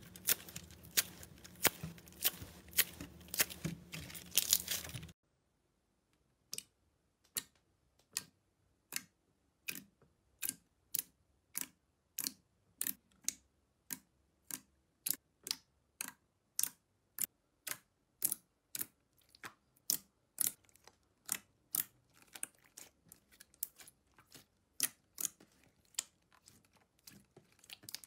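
Slime being squeezed and stretched by hand: for about five seconds a dense crinkly crackling, then, after a sudden stop, a steady run of sharp pops and clicks at about two a second as glossy slime is pressed and folded and its air pockets burst.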